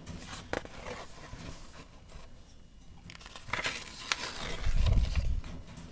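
A picture book being opened and its paper pages turned by hand: rustling and short crackling page flips, with a dull low thump from the book being handled near the end.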